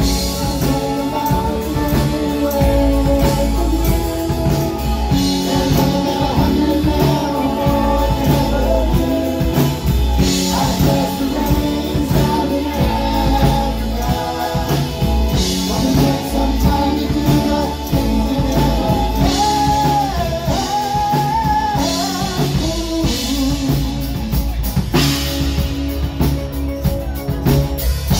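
Live rock band playing: a man's lead vocal sung into a microphone over electric guitar and drum kit, loud and steady throughout, amplified through the PA.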